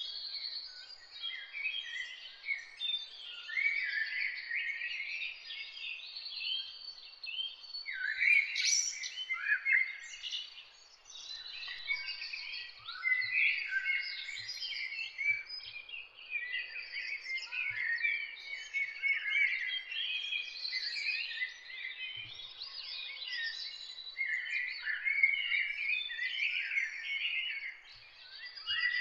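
Many small birds chirping and twittering at once, a dense continuous chorus of short rising and falling calls.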